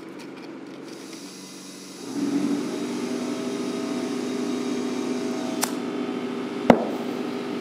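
An electric motor starts about two seconds in and runs with a steady hum. A sharp knock comes near the end.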